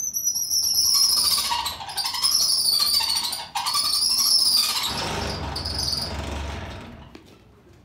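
Antique hand-cranked post drill press squealing as its wheel is turned, in three long strokes, each a high squeal falling slightly in pitch. Then a lower, rougher running sound that fades out.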